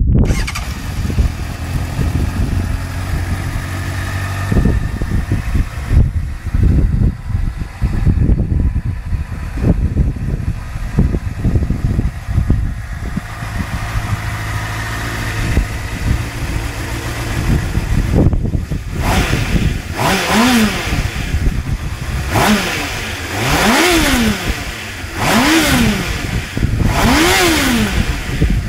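Honda CBF600 Sport's inline-four engine on its stock exhaust, idling steadily. About two-thirds of the way through it is revved in a series of short throttle blips, each rising and falling in pitch, one every second and a half to two seconds.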